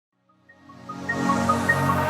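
Electronic background music fading in from silence about half a second in: sustained synth chords with a repeating pattern of short high notes.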